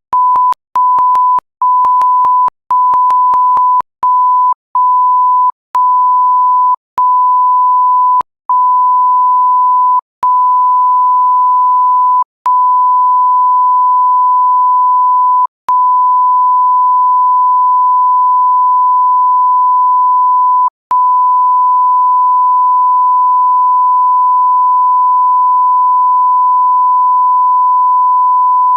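Pure 1 kHz test tone, the 'beep' used for TV colour-bar screens and for bleeping out swearing. It begins as rapid short beeps whose lengths grow steadily, the gaps coming further apart, until it holds as one unbroken tone for the last several seconds.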